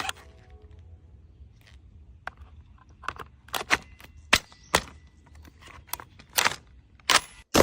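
Gunshots fired singly at an irregular pace, about a dozen sharp cracks that come closer together from about three seconds in, the loudest at the very end.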